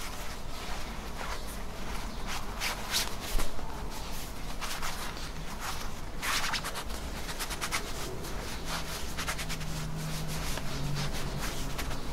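Cloth rustling and rubbing as a necktie is pulled through and knotted against a shirt collar, in irregular swishes.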